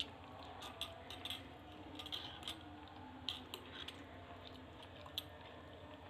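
A steel spoon stirring milky vermicelli in a glass bowl, clinking and scraping against the glass in faint, irregular clicks.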